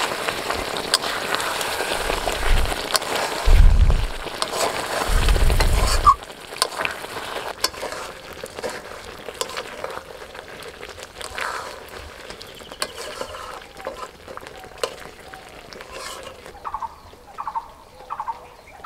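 Thick chicken curry bubbling and sizzling in an open metal pot while it is stirred with a metal spoon, with a few low thumps; about six seconds in the sizzle drops away abruptly, leaving scattered spoon clicks against the pot. Near the end chickens cluck with short repeated calls.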